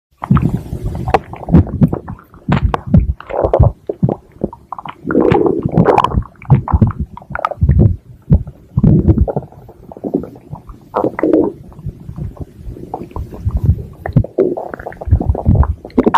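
Stomach growling: an irregular, almost unbroken run of low rumbles and gurgles with short squeaks and pops.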